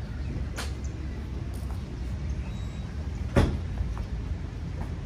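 Golf iron shots struck off a driving-range hitting mat: a light click a little over half a second in, then a loud, sharp strike about three and a half seconds in that is called solid. A steady low rumble runs underneath.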